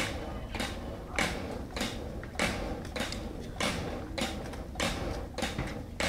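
Traditional hand-cranked popcorn pressure cooker being turned over a fire, making a rhythmic creaking rasp about once every 0.6 seconds as the drum rotates before it is popped.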